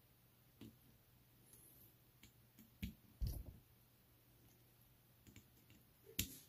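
Sparse small clicks and taps of a precision screwdriver working the tiny caseback screws on a plastic dive-style watch, with a louder knock a little after three seconds and a sharp click near the end.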